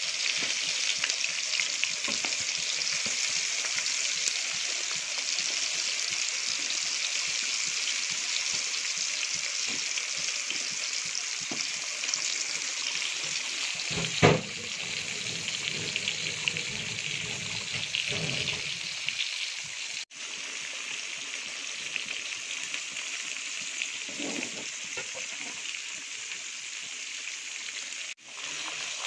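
Beef kofta meatballs deep-frying in hot oil in a karahi: a steady sizzle, with a single sharp knock about halfway through. The sizzle breaks off for an instant twice in the second half.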